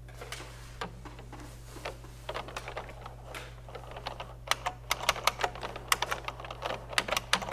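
Typing on a beige desktop computer keyboard: irregular keystrokes, soft at first, then sharper and louder from about halfway through, as a login name and password are entered.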